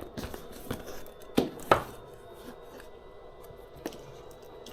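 A few sharp taps and clicks of a cardboard product box being handled, the loudest two close together, then faint room noise.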